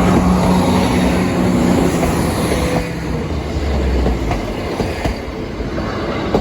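Diesel train passing over the level crossing: a steady engine note under the rumble of the wheels, with the clickety-clack of wheels over rail joints.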